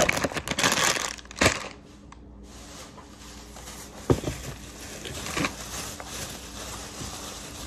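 Thin plastic grocery carrier bag crinkling and rustling as items are handled and pulled out of it, loudest and densest in the first second and a half with a couple of sharp crackles, then quieter rustling with a few soft knocks.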